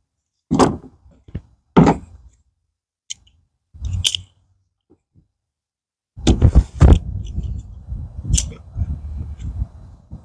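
Sharp knocks and handling noise from work on a pet door's screen frame as pet screen is pressed in with spline: three separate knocks, then from about six seconds in a continuous low clattering and rubbing with more knocks.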